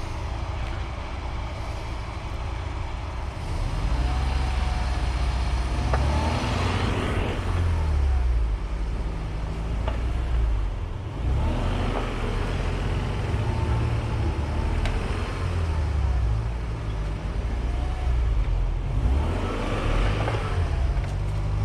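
Off-road 4x4's engine running under load while driving through snow, its revs rising and falling, with several short bursts of hiss.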